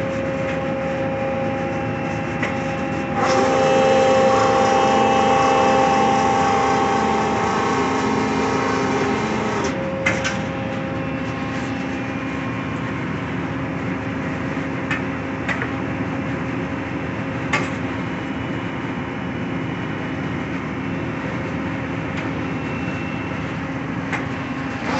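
Marvel Model 81A12PC vertical automatic band saw running with a steady hum. From about three seconds in, a louder stretch of some six seconds as the blade cuts through a clamped wooden block. Then the steady running returns, with a few sharp clicks.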